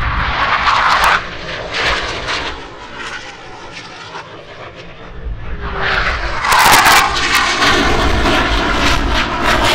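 Blue Angels F/A-18 jets passing over. The jet roar is loud at first and fades over the first few seconds, then swells again about halfway through, loudest with a crackling edge, and stays loud.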